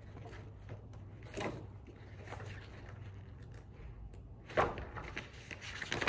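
Pages of a method book being handled and turned: a few short rustles and soft knocks, the loudest about four and a half seconds in, over a steady low hum.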